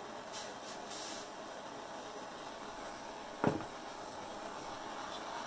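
Handheld gas torch flame hissing steadily while heating scrap silver and copper on a soldering block. There are a few short, higher-pitched hissing bursts within the first second, and a single sharp knock about three and a half seconds in, which is the loudest sound.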